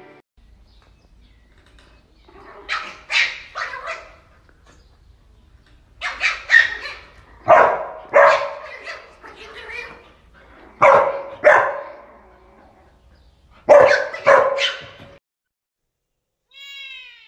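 Dog barking in short runs of two or three barks, with pauses of a second or two between runs. A brief, faint, high wavering cry comes near the end.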